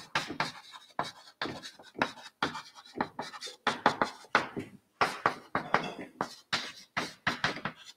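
Chalk writing on a chalkboard: a quick, irregular run of short taps and scratches as words are written out.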